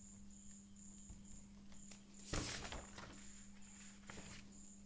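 Sheets of paper rustling as a page is handled and lifted, loudest about two and a half seconds in, with a few lighter rustles near the end. Under it a cricket chirps in an even, high-pitched pulsing rhythm, over a low steady hum.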